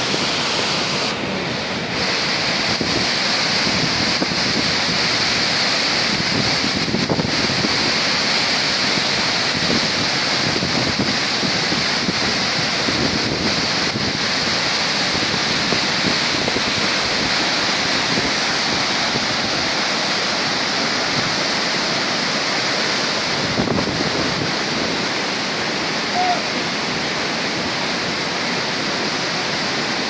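Waterfall rushing steadily, heard up close in its spray.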